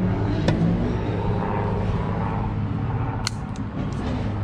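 Airplane flying overhead: a steady low drone, with two sharp clicks, one about half a second in and one about three seconds in.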